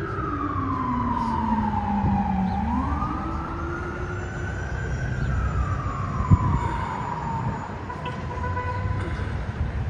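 Fire engine siren wailing. Its pitch falls slowly, climbs quickly about three seconds in, falls again and settles into a steady tone near the end, over a low rumble of street traffic. A single sharp thump comes about six seconds in.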